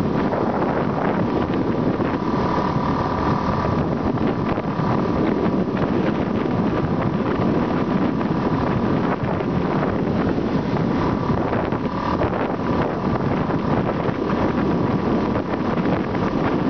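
Wind buffeting the microphone of a moving motorbike, over the steady drone of its engine and road noise. A faint steady whine comes and goes.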